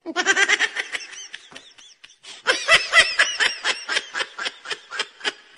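Laughter sound effect: two bouts of quick, high-pitched giggling. A short one comes first, then a longer one about two and a half seconds in, each trailing off.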